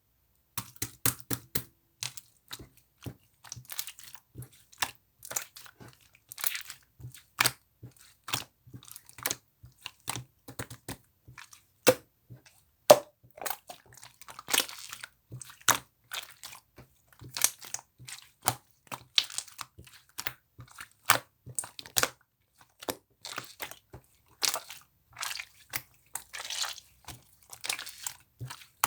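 Close crunching and crinkling in quick, irregular bursts of sharp crackles.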